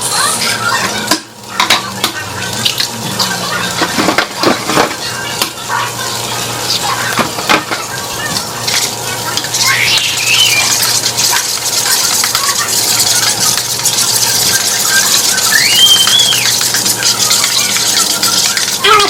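Cooking in a kitchen: utensils clinking and scraping against dishes and a pan, with frying sizzle that grows stronger in the second half.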